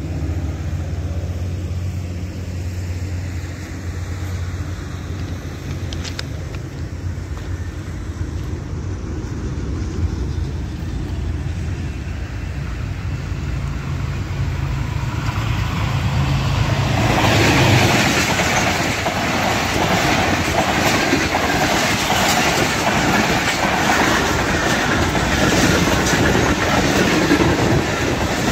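GE U20 diesel-electric locomotive hauling an express passenger train: a steady low engine drone grows as the train approaches. About two-thirds of the way in the locomotive reaches the microphone, and the coaches pass close by with loud rumbling and rapid wheel clatter.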